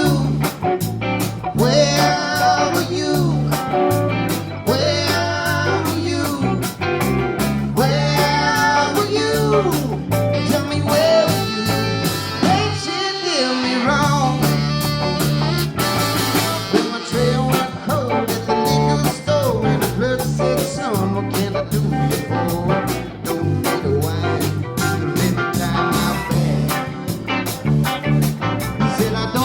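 Live rock band playing a song with a steady drum beat, bass and electric guitar, and a bending lead line over the top.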